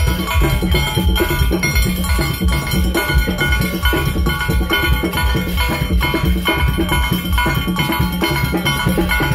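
Steel band playing live: steelpans ringing out a rhythmic carnival tune over a steady percussion beat.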